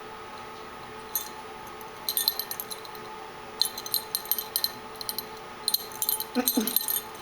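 A kitten's collar jingling in short, quick bursts as she plays, four times over. Near the end comes a brief, falling low sound.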